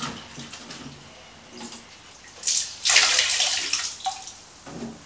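Water wrung out of a dishcloth splashing into the toilet pan: a short splash about two and a half seconds in, then a longer one of about a second, as the cistern is sponged dry.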